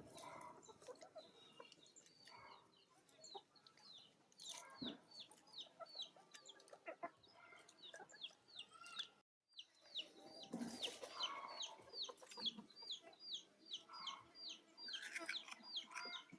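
Chickens: a long run of short, high, falling peeps, about three a second, with lower clucking calls mixed in. The peeps break off for a moment about nine seconds in, then carry on.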